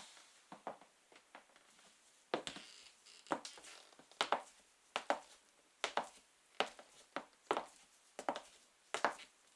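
High-heeled sandals tapping on a wooden floor in slow, even steps, about one step a second. The taps are soft at first, then sharp heel clicks from about two seconds in.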